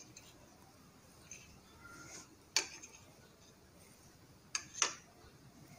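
A metal spoon clicking lightly against a bowl: one click about halfway through, then two close together near the end, over faint room tone.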